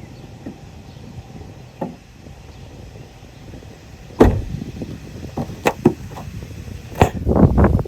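A few sharp knocks and thumps over a low background rumble: the loudest comes about four seconds in, more follow around six seconds, and a quick cluster comes near the end.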